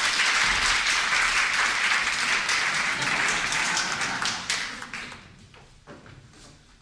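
Audience applauding, then dying away about five seconds in.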